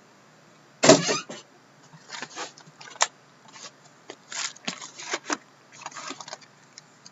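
Cardboard boxes of hockey cards handled and knocked together as they are tipped out of the case and stacked, with a loud clatter about a second in followed by scattered lighter knocks and rustles.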